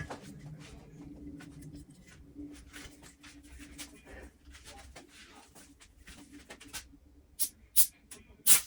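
Light scratching and small clicks of hands and tools working on a mixing console, over a faint steady hum, with three sharper clicks near the end.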